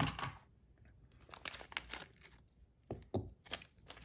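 Packaging being handled and opened, crinkling and tearing in several short bursts.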